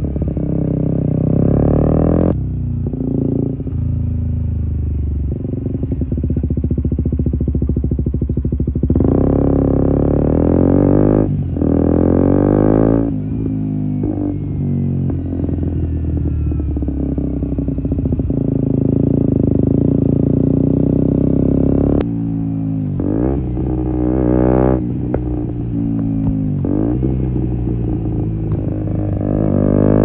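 A KTM 125 Duke's single-cylinder four-stroke engine, heard close to its Akrapovic slip-on silencer with a decat link pipe, ridden hard: it revs up through the gears with the pitch climbing. Several times the throttle snaps shut and the pitch falls away quickly, with a few sharp cracks from the exhaust on the overrun.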